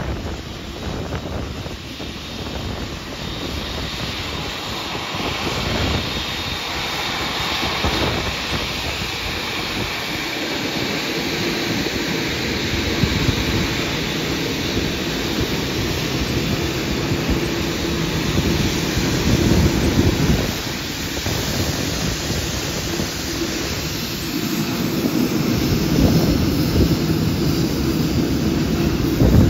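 Jet airliner engines running, a steady high whine over a rumble that grows slightly louder over the span, with wind buffeting the microphone.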